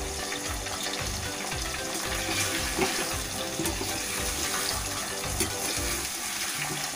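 Chopped tomatoes, onion, garlic and ginger sizzling in hot oil in a pan as they are stirred with a spoon, with a few sharp clicks of the spoon against the pan.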